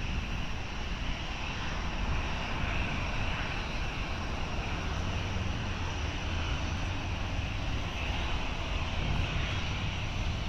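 Jet engines of a Korean Air Airbus A380 (four Engine Alliance GP7200 turbofans) on takeoff: a steady deep rumble with a hiss over it.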